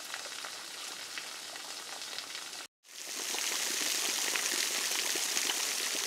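Small spring-fed waterfall trickling and dripping down a mossy travertine rock: a steady, rain-like hiss of thin streams and separate drops. It breaks off for a moment a little before halfway, then comes back louder.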